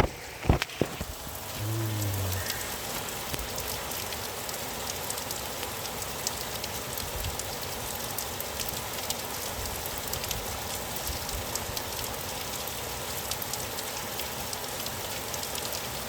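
Steady rain falling, with many separate drops ticking on a hard surface. A couple of sharp knocks about half a second in.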